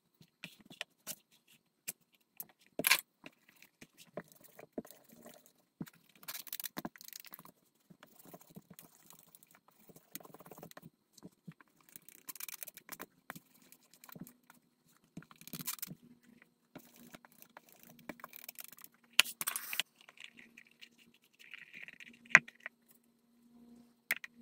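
Leather pieces and hand tools being handled on a stone countertop: scattered clicks, taps and short scraping rubs, with a few louder sharp clicks.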